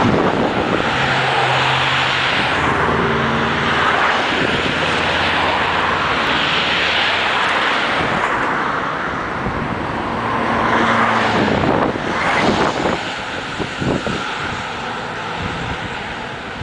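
Road traffic going past close by: cars driving by one after another, engine and tyre noise swelling and fading with each pass.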